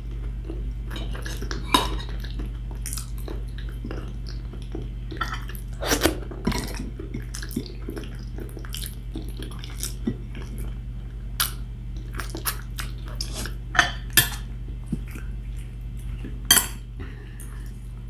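Close-miked sounds of eating with the fingers from a plate: scattered short clicks and clinks of hand, food and plate, with chewing and lip smacks between. A steady low hum runs underneath.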